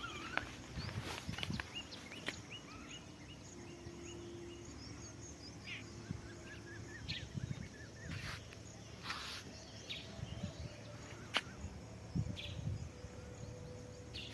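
Quiet outdoor ambience with scattered short bird chirps and calls, and a few soft clicks and rustles.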